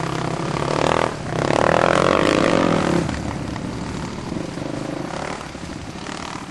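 Dirt bike engine revving hard under throttle, easing off briefly about a second in and then pulling again. From about three seconds in it runs quieter and steadier as the bike moves away.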